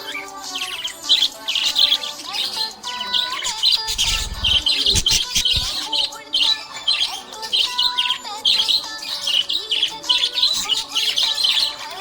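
Budgerigars chirping and warbling continuously: a dense stream of fast, overlapping high chirps with some held whistled notes.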